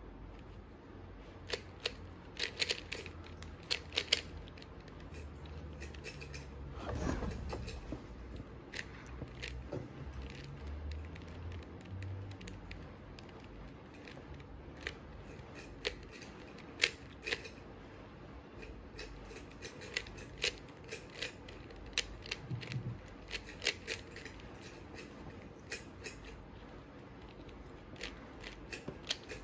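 Plastic 3x3 Rubik's cube being turned fast in the hands: irregular clicking and clacking of the layers snapping round, in quick flurries.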